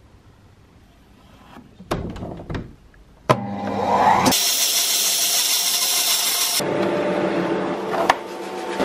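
A few knocks, then a woodworking machine is switched on about three seconds in. Its motor spins up with a rising whine and then runs with a loud, steady rushing noise. There is a click near the end.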